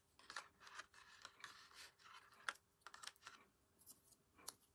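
Faint light taps and rustles of small paper cut-outs being laid and slid onto a paper card: a scatter of short soft clicks, with a sharper tap about two and a half seconds in and another near the end.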